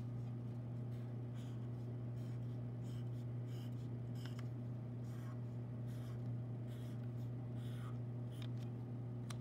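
Sharpie permanent marker drawing short lines on paper, a soft scratch with each stroke, coming irregularly about every half second, over a steady low hum.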